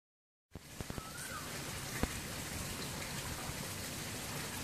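Steady outdoor background hiss that starts about half a second in, with a few faint clicks, the sharpest about two seconds in, and one brief chirp about a second in.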